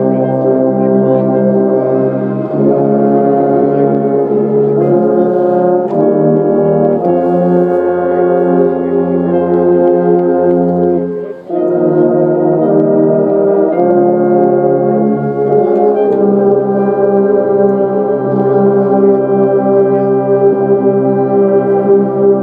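Marching band brass playing slow, held chords that shift every second or two, with a short break about halfway through.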